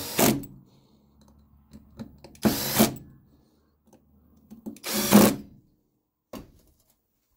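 Cordless drill-driver running in three short bursts, one at the start, one about two and a half seconds in and one about five seconds in, driving the float bowl screws down on an Arctic Cat quad's carburetor.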